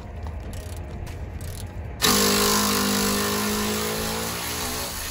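A motor starts abruptly about two seconds in and runs for about three seconds, its pitch sagging slightly as it fades.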